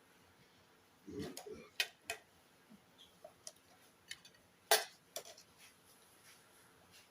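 Scattered clicks and clinks of utensils and dishes at a meal, the loudest a little under five seconds in, with a short low sound just after one second.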